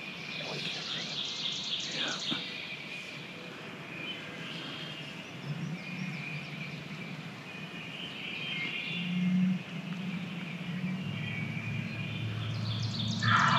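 Songbirds chirping and trilling in spring woodland, in scattered bursts, over a faint low rumble that grows toward the end.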